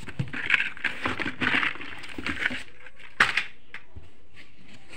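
Cardboard and paper firecracker packets rustling and scraping as they are pulled out of a cardboard carton, with one sharp knock about three seconds in.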